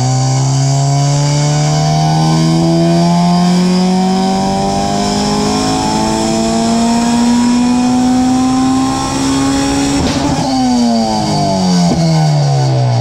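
Honda B16A2 four-cylinder VTEC engine with a big-tube race header making a full-throttle dyno pull. The exhaust note climbs steadily in pitch for about ten seconds, then falls away as the throttle is let off and the revs wind down.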